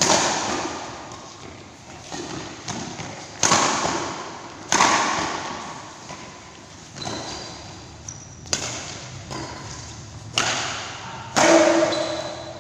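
Badminton rackets striking the shuttlecock in a fast rally: about ten sharp cracks, irregularly spaced one to two seconds apart, each echoing away in a large hall.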